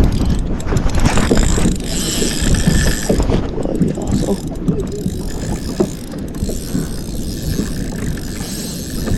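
Fishing reel being wound in, its gears giving a quick run of mechanical clicking, over wind buffeting the microphone.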